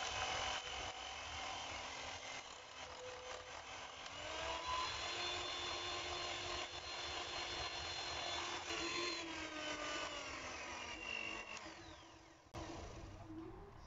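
Two-beater electric hand mixer whisking egg whites in a glass bowl, its motor whirring steadily as the whites go from liquid to stiff foam. The motor's pitch steps up about four seconds in and slides back down near the end.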